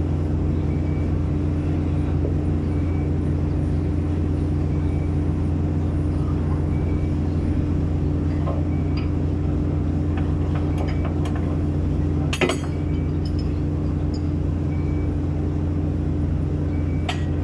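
Giken Silent Piler hydraulic sheet-pile press and its power unit running with a steady low hum. A few metal clinks sound about two-thirds of the way in, with a sharp knock among them and another knock near the end. A faint short beep repeats about every two seconds.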